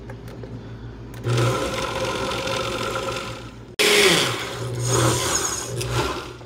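Countertop blender pureeing a thick jerk marinade of scotch bonnets, spices, soy sauce and brown sugar. It starts about a second in, cuts off sharply just before four seconds in, runs again at once, then dies away near the end.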